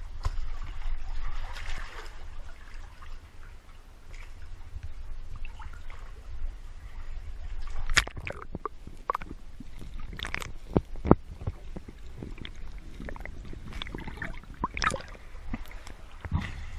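Sea water sloshing and gurgling around a swimmer's head-mounted camera as it dips in and out of the water, with a low rumble under it. Sharp splashes break in several times, the loudest about halfway through.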